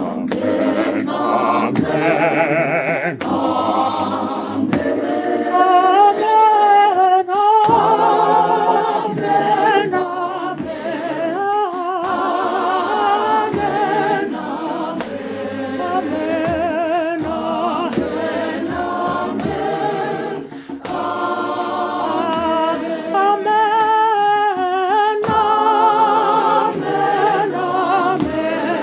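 Mixed choir of men's and women's voices singing a cappella in harmony, holding long notes with vibrato.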